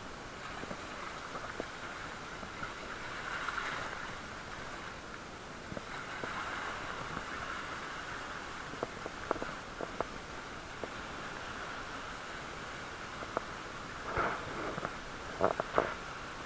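Sea water washing and sloshing among rocks at the shoreline as a steady rushing hiss, with scattered sharp taps and knocks, the loudest a cluster near the end.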